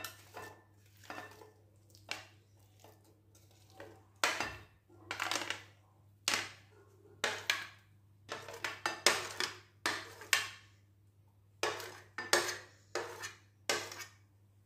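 Chopped fruit being scraped off a ceramic serving tray with a utensil into a glass bowl: an irregular run of short scrapes and clinks of the utensil on the tray and bowl, with pieces of fruit dropping in.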